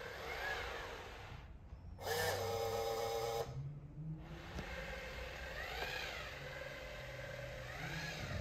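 iRobot Braava Jet M6 robot mop running, its motor whine rising and falling in pitch several times, with a loud steady tone lasting about a second near the middle.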